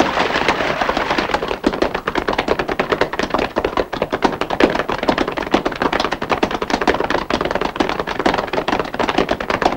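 Many horses galloping: a dense, irregular clatter of hoofbeats on hard ground.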